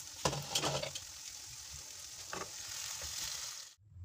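Okra masala sizzling as it fries in a pan, with a spoon stirring and scraping through it twice. The sizzle cuts off suddenly near the end.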